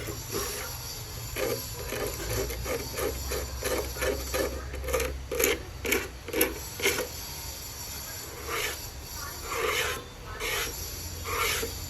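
Repeated scraping or rubbing strokes at about three a second, like a hand tool working a surface. They stop about seven seconds in, and a few scattered strokes follow.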